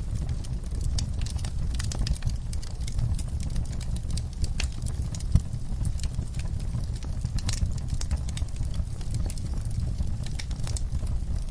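Campfire crackling: wood burning with irregular sharp pops and snaps over a steady low rumble, one louder pop about halfway through.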